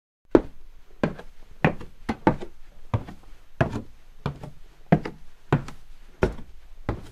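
Heavy footstep sound effect: a steady series of dull thuds, about one and a half a second, starting about a third of a second in.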